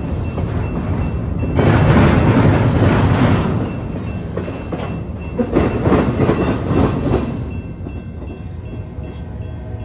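Train rolling past, its wheels clattering over the rails in uneven surges. The noise fades over the last couple of seconds.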